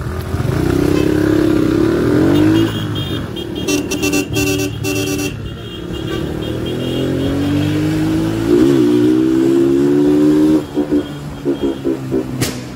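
Small single-cylinder Kuba CG motorcycle engine pulling under way. Its pitch rises steadily as it accelerates, then drops back at each gear change, about three times.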